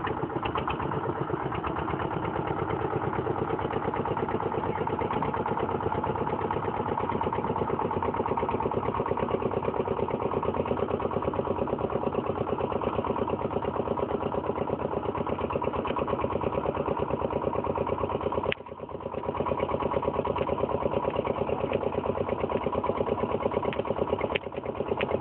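Motorboat engine running steadily with a fast, even chugging. It dips briefly about eighteen seconds in and then comes back at the same level.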